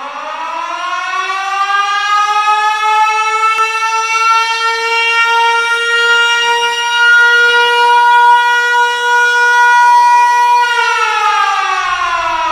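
A loud siren wailing: it rises in pitch over the first few seconds, holds one steady tone, then starts to fall about two seconds before the end.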